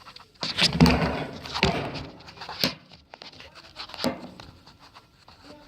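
Handling noise from repair work on a top-load washer's belt drive: a few sharp clicks and knocks with rustling and scraping between them, loudest about a second in.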